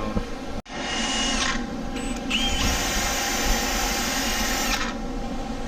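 Cordless drill spinning a sanding pad against the metal flange of an exhaust header, scuffing the gasket surface clean. It runs in a steady whir for about four seconds and stops near the end.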